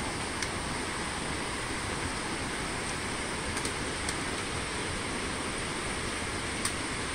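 A steady rushing noise runs throughout, with a few sharp clicks of trekking-pole tips striking stone steps, about four times.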